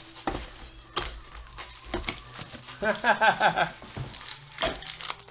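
Foil trading-card pack wrappers crinkling and cards being handled, a run of sharp crackles and rustles. A brief voice-like sound comes about three seconds in.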